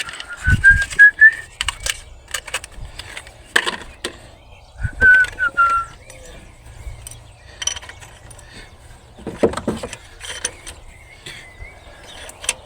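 A person whistling a few short notes twice, over scattered metallic clicks and knocks of hand tools being handled.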